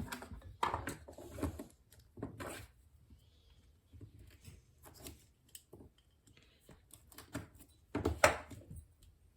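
Scattered small knocks, clicks and scrapes of typewriter rubber-foot hardware being handled: metal brackets, screws and rubber feet set down and fitted. The loudest knock comes about 8 seconds in.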